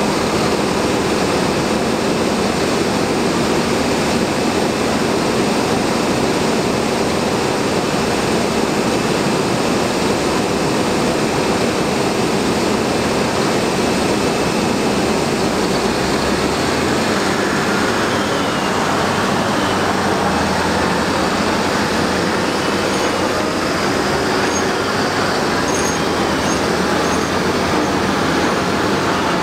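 Liebherr articulated dump truck's diesel engine running steadily as the heavy truck drives, with the rumble of the machine on the move.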